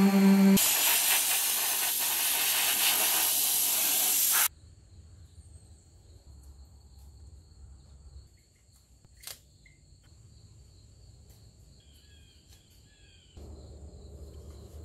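Random orbital sander running on the painted steel cab, a dense even hiss that cuts off abruptly about four and a half seconds in. After that only a faint low hum remains, with a single sharp click and a few faint chirps.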